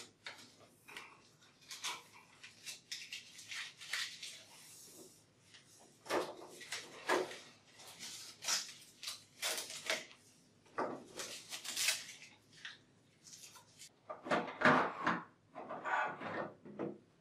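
Hands working among the plastic ingredient canisters and mixing units of a coffee vending machine: tape being peeled off, and plastic parts clicking, rustling and knocking in irregular bursts, busiest near the end as a canister is lifted out.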